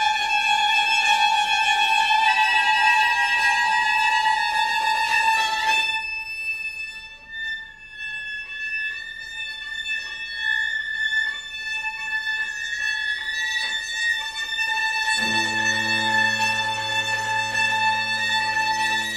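String quartet playing long held high notes on bowed strings. About six seconds in the lower of the high notes drops out, leaving a thin high held tone with faint short strokes under it, and about fifteen seconds in the cello comes in with a low held note.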